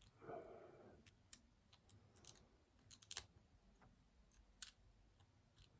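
Faint, irregular metallic clicks and ticks of a lock pick and tension wrench working inside a padlock, about one a second, with a soft scrape at the start.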